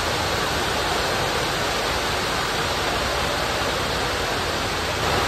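Steady, fairly loud hiss spread evenly from low to high pitches, with no distinct hits or voices; it swells slightly near the end.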